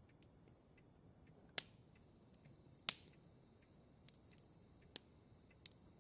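Clock ticking softly and evenly, with louder, irregular sharp clicks or snaps about every second or so.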